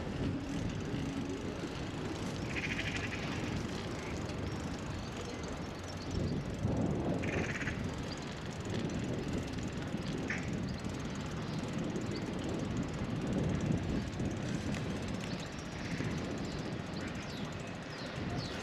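Outdoor marina quayside ambience: a steady low rumble, with a few short high-pitched buzzes about three, seven and ten seconds in.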